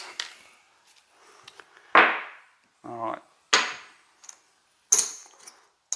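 A handful of separate sharp clacks of craps gear being handled on the table: the dice, the point puck and casino chips set down and moved. The loudest comes about two seconds in, with others about three and a half and five seconds in.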